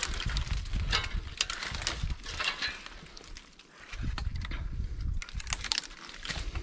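Hand saw cutting through wood in uneven back-and-forth strokes, pausing briefly about halfway through before the strokes resume.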